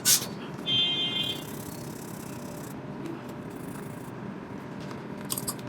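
A tool scraping residual waterproof adhesive off an iPhone 7 Plus housing. There is a sharp click just after the start, then a short squeak about a second in, and a few faint ticks near the end, over a steady low hiss.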